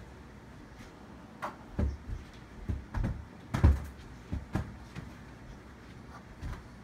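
Several dull thumps and knocks over about three seconds, the loudest a little past halfway, from children's play with an inflatable beach ball: the ball being batted and bounced, and small feet on the carpeted floor.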